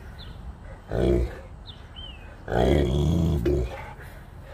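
Saint Bernard puppy growling in play with a plastic bowling pin in its mouth: a short growl about a second in, then a longer one about two and a half seconds in.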